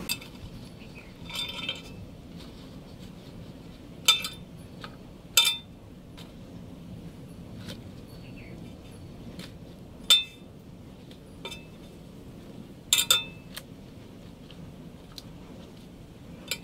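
Sharp clinks and taps on a metal cooking pot as hands lay rice-flour dumplings into it, about half a dozen at irregular intervals, with two in quick succession about three-quarters of the way through.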